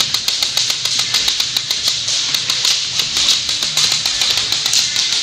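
Music with guitar over a fast, even ticking beat of about six clicks a second.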